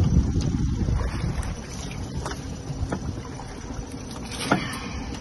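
Wind buffeting the microphone in a low rumble, with a few short knocks from a wire-mesh crab and lobster pot being handled against the side of a small boat; the sharpest knock comes about four and a half seconds in.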